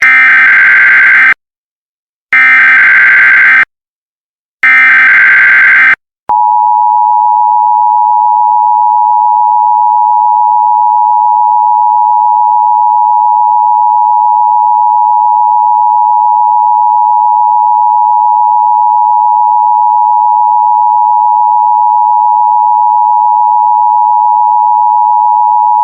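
Emergency Alert System tones: three SAME header bursts of encoded data, about a second each with short gaps between, then the steady two-tone attention signal held for about twenty seconds, heralding a tsunami warning.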